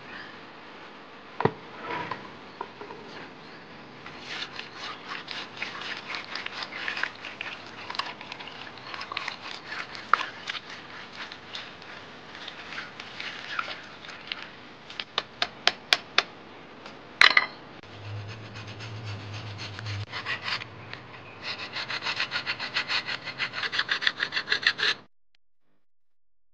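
A stone millstone being dressed by hand, its grooves worn flat and being recut: a chisel scrapes and taps the stone in rhythmic strokes. About two-thirds of the way in there is a run of sharp clicks and one loud knock, and near the end the tapping comes quick and even, then stops abruptly.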